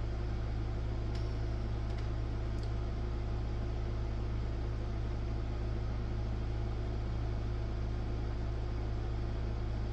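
Steady low electrical hum over a constant hiss, with a few faint light clicks in the first three seconds.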